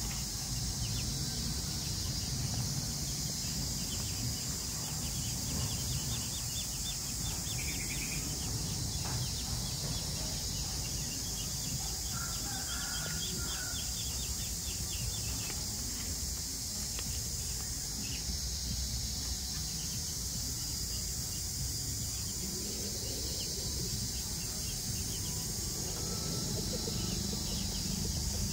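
Rural outdoor ambience: a steady high hiss and a low rumble, with a few short bird chirps.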